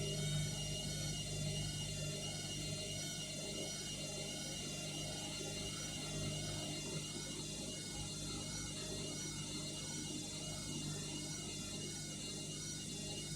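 Indesit washing machine running in suds-lock after a detergent overdose: a steady motor hum with a high whine that wavers slightly up and down.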